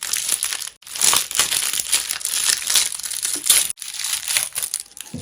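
Crinkling and crunching of a plastic snack wrapper being handled, breaking off briefly twice.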